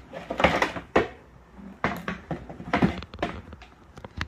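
Kitchenware being handled in a cardboard box: a stainless rice cooker is lifted out and set on a concrete floor, then a plastic cake carrier is picked up. It makes a string of knocks, scrapes and plastic clatter, with several sharp clicks.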